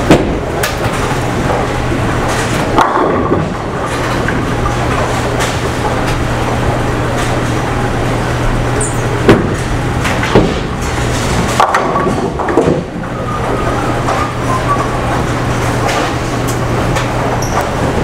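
Bowling alley in play: a steady low rumble of balls rolling down the lanes and alley machinery, broken by several sharp crashes of balls hitting pins, the loudest about nine and ten seconds in.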